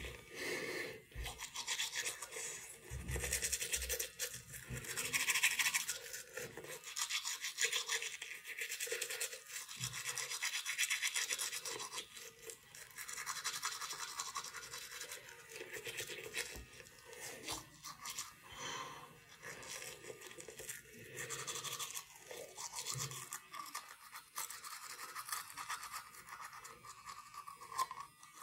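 Teeth being brushed with a toothbrush and toothpaste: wet scrubbing that rises and falls with the brush strokes.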